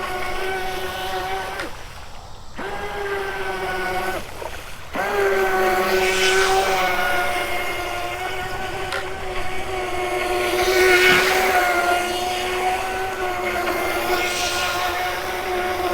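Battery-powered RC racing boat's motor whining steadily, with the hiss of water spray. The motor cuts out briefly twice, about two and four and a half seconds in, then comes back up to speed.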